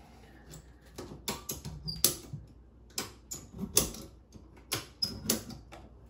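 Ratchet strap being cranked tight, its ratchet mechanism giving a dozen or so sharp clicks in uneven bunches, loudest about two seconds in. The strap is compressing a compound bow's limbs in a bow press to take the tension off its cables and string.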